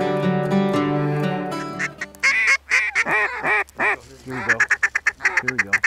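Acoustic guitar music fades out about two seconds in. It gives way to a series of loud, mallard-style quacks, then a quicker run of short quacks.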